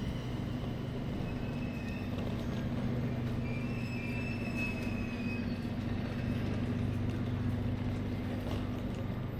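Train running with a steady low hum, and a faint high-pitched whine briefly around the middle.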